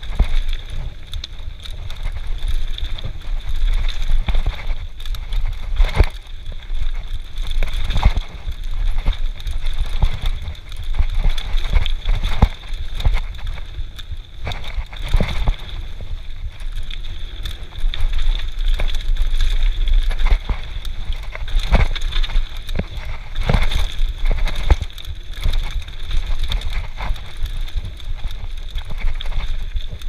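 Mountain bike descending a rough dirt trail at speed: wind buffeting the camera microphone, with the bike's frame, chain and tyres knocking and rattling over roots and rocks every second or so. A steady high buzz runs underneath.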